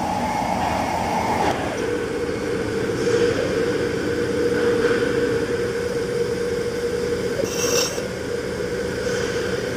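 Factory machinery running steadily with a constant whine over a noisy hum; the whine steps down in pitch about one and a half seconds in and then holds. A short high-pitched metallic sound comes near the end.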